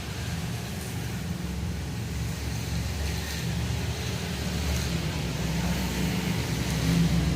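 Hot-and-cold laminating machine (FM 3520) running with a steady low hum.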